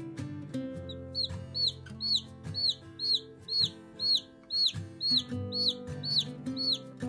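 A baby chick peeping loudly and insistently, about two high peeps a second, each rising then falling in pitch, starting about a second in. Acoustic guitar music plays underneath.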